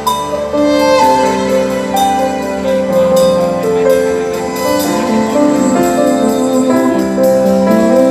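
Live band playing an instrumental passage between sung lines of a song: a sustained lead melody over chords, with steady drum and cymbal strokes.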